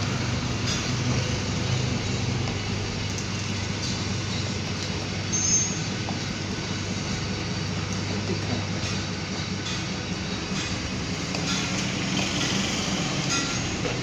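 Gas-fired melting furnace running: a steady rushing noise with a low hum underneath. There is a brief high-pitched sound about five and a half seconds in.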